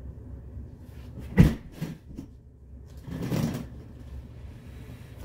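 A mattress being manoeuvred onto a black metal platform bed frame: a sharp thump a little over a second in with a lighter knock just after, a longer rustling slide of the mattress about three seconds in, and another thump at the very end.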